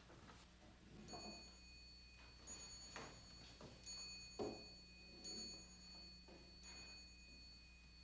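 A small high-pitched bell struck five times, evenly about a second and a half apart, each stroke ringing on. Soft knocks and shuffles sound underneath, the loudest about halfway through, over a faint low hum.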